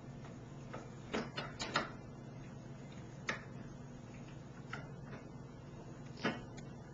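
A few light knocks and clicks over a steady low hum. A quick cluster of four comes about a second in, then single ones near the middle and shortly before the end.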